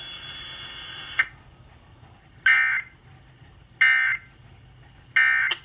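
Emergency Alert System end-of-message data tones over the radio: three short, loud, buzzy bursts about 1.3 seconds apart, marking the end of the alert. Before them a faint steady hum of the broadcast, broken by a click about a second in.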